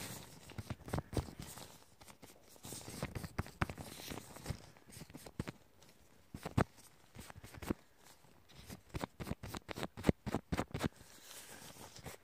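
Fingertips tapping, touching and rubbing directly on a phone close to its microphone: irregular clusters of soft, crisp taps and scratchy touches, with a quieter spell in the middle.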